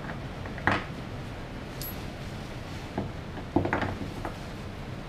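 Metal hook of a ratchet tie-down strap being fastened to a steel floor anchor point, giving a few separate metallic clinks and rattles.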